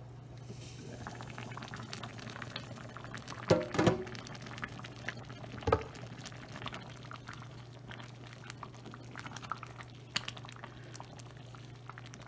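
Thick black bean soup simmering in an uncovered pot, bubbling and popping, over a steady low hum. A couple of louder knocks come about three and a half seconds in and again near six seconds.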